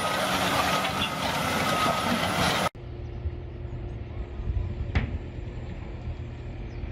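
Heavy vehicle engine noise. It starts loud and full of noise with a few steady tones, then cuts off suddenly to a lower, quieter engine rumble, with a single sharp click about five seconds in.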